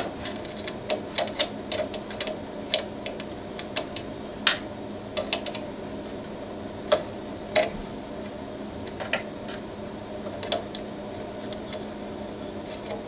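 Scattered light clicks and taps of a hand tool and a spacer against the heatbed screws of a Prusa i3 MK3 3D printer as the screws are tightened and the bed height checked, irregular and a few each second, over a faint steady hum.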